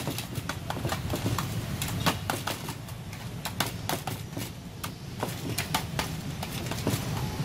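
Metal blade chopping sticky rice dough in an aluminium pan, its edge knocking on the pan bottom in quick, irregular clicks, over a steady low hum.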